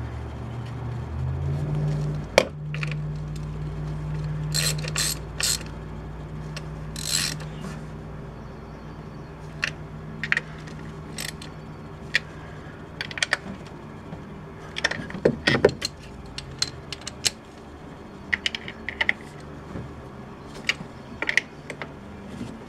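Ratchet wrench clicking in short, irregular bursts as a valve cover bolt on a Chevy 5.3 V8 is snugged down. A steady low hum runs under it and stops about two-thirds of the way through.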